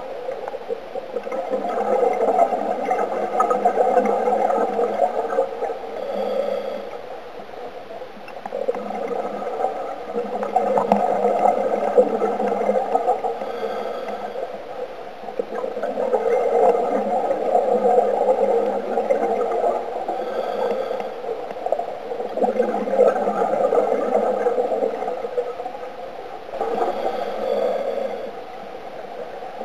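Scuba diver breathing through a regulator underwater: a short hiss of inhalation followed by a long bubbling exhalation, about every six to seven seconds.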